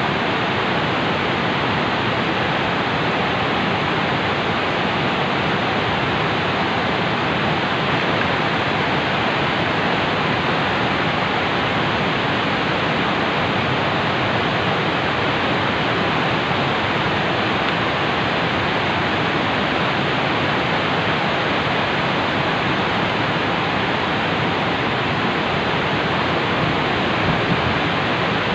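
Loud, steady rush of fast-flowing river water at a dam.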